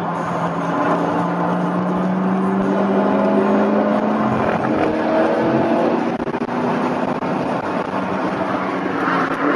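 Car exhaust fitted with a Bassani X-pipe and Dynomax resonators droning under steady acceleration, the engine note rising slowly in pitch over the first few seconds and then holding at cruise, heard from inside the cabin.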